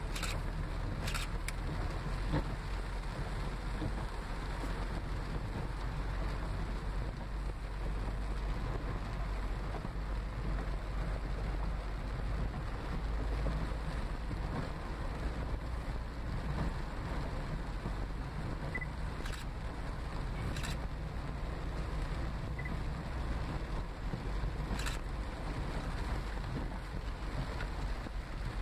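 Heavy rain pouring down, a steady hiss over the low, even rumble of a vehicle on flooded streets, with a few faint clicks.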